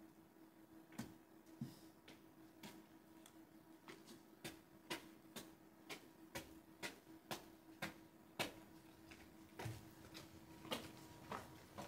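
Faint, irregular sharp ticks, about one or two a second, over a steady low hum.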